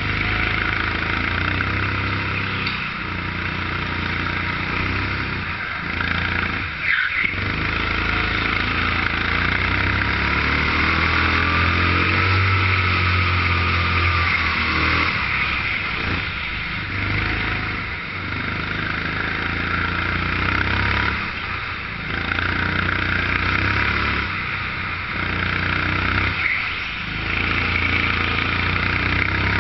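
Onboard sound of a 13 hp Sodikart rental kart's four-stroke engine running hard around an indoor circuit. The note drops briefly about six times as the throttle is lifted for corners, then picks back up.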